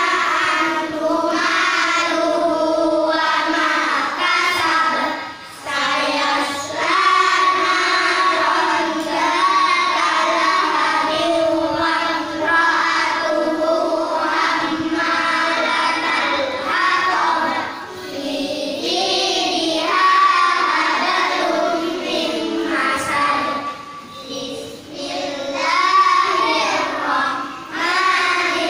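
A classroom of young children reciting Quranic verses together in unison, in a sing-song chant, with a few brief breaks between lines.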